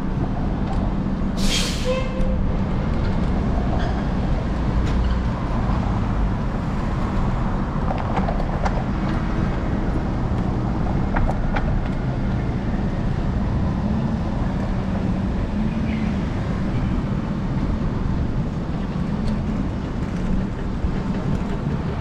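Steady rumble of city traffic and road noise picked up by a camera on the handlebars of a moving electric scooter, with a short sharp hiss about a second and a half in.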